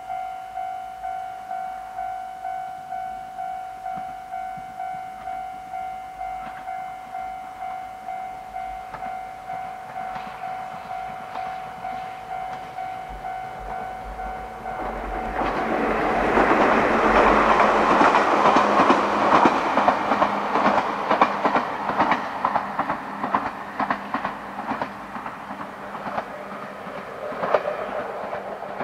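An electric train of the Ichibata Electric Railway approaching and passing close, its wheels clattering over the rail joints. For the first half, a level-crossing warning bell dings steadily a little faster than once a second. About halfway through, the train noise swells and drowns it, peaking with a run of sharp wheel clicks and then fading.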